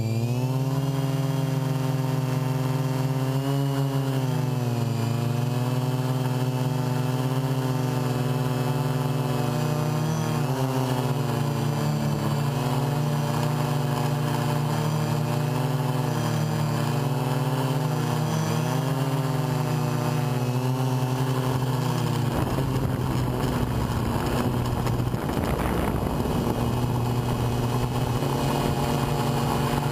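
Hexacopter's electric motors and propellers whirring from on board, a steady pitched hum that dips and rises again and again as the throttle changes. About three quarters of the way through, a rough rushing noise joins the hum.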